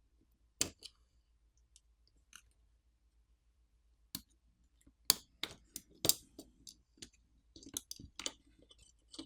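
Small tools and phone parts clicking and tapping against each other as a smartphone is taken apart. There are scattered sharp clicks, sparse at first and busier from about four seconds in.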